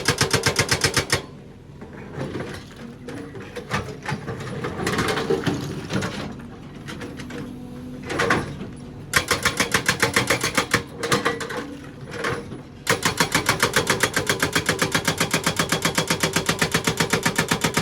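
Excavator-mounted hydraulic breaker hammering rock in a rapid, even rhythm of blows. The blows stop about a second in, leaving quieter, uneven machine noise. They start again after several seconds, break off briefly twice, then run steadily to the end.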